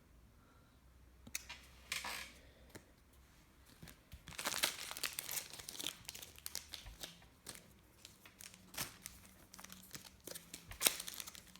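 Trading-card pack wrapper crinkling and being torn open in scattered bursts, with a few sharp clicks.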